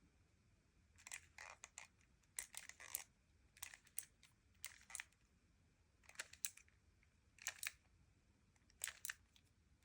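3x3 speedcube's top layer flicked round by the index fingers, turn after turn: seven short, faint bursts of quick plastic clicks about a second apart, with quiet between.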